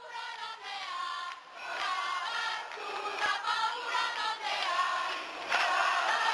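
A group of voices singing together in chorus, getting louder as it goes.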